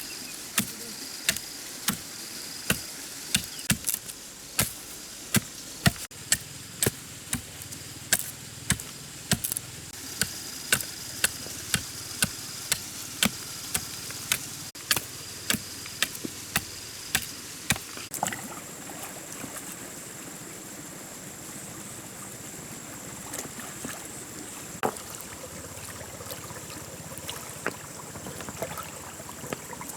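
Chopping: sharp strikes at about two a second, which stop about eighteen seconds in and leave only a few scattered knocks. Under them a steady hiss of running water, and from about the same point a high steady tone.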